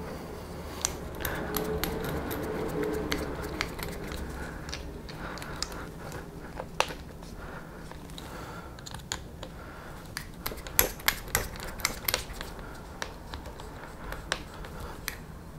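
Small hex driver and screw clicking and ticking against plastic as a wing screw is driven into its lock nut on a 1/8-scale RC buggy. A quick run of sharp clicks comes about two-thirds of the way in.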